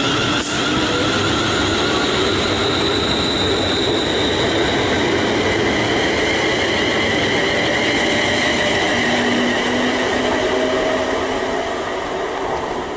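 Siemens Desiro Class 350 electric multiple unit accelerating out of the station past the listener. Its traction motors whine in several tones that glide slowly in pitch over the steady rush and rumble of wheels on rail, and it eases off slightly near the end.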